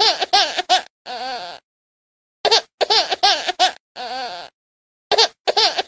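A high-pitched voice in rapid short hiccuping bursts, each run ending in a breathy intake, the same clip looping about every two and a half seconds.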